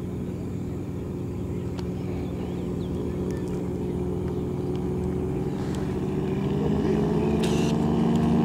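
Light single-engine high-wing propeller plane's engine droning as it flies in low toward the listener, growing steadily louder, its pitch edging up near the end as it closes in.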